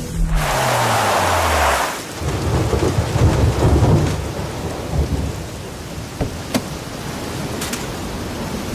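Ford Expedition SUV's engine winding down as it pulls to a stop on wet sand. Its pitch falls over the first two seconds under a hiss of tyres through water. Then comes a low rumble and the steady wash of surf and wind, with a few sharp clicks later on.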